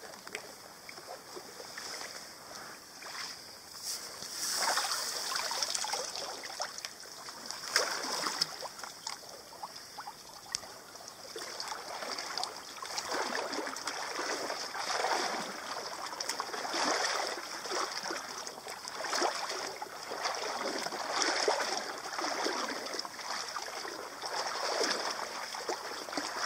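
Kayak paddle blades dipping and pulling through creek water, a splashing stroke about every two seconds.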